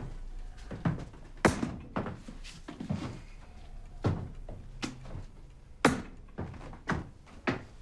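Books being thrown down from the shelves onto the floor during a search: about a dozen irregular heavy thuds and knocks, the loudest about a second and a half in and again near six seconds.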